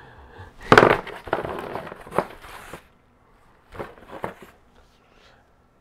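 Rustling and crinkling of packaging being handled in a cardboard merchandise box, loudest about a second in, followed by a couple of small knocks.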